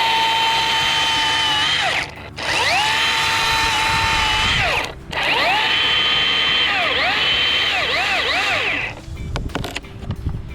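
Battery-powered electric chainsaw whining at a steady pitch. It stops and restarts twice, then its pitch dips several times as the chain loads in the wood, and it stops near the end, leaving a few faint knocks.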